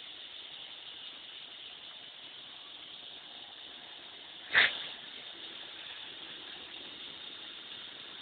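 Steady outdoor background hiss over a town, with one short sharp knock about halfway through.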